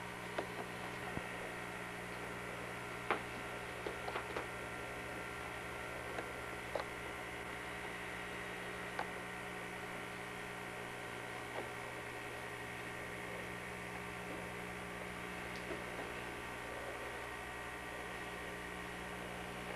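Steady electrical hum, with a few faint short clicks scattered through it.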